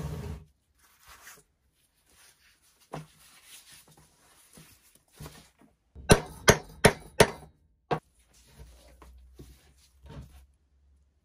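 A hammer striking a steel hollow punch four times in quick succession, about a third of a second apart, a little past halfway, punching round discs out of leather on a wooden block. Softer knocks and shuffling come from the block and leather being handled before and after.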